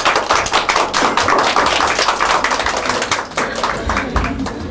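Applause: many hands clapping in a dense, fast patter that thins out near the end.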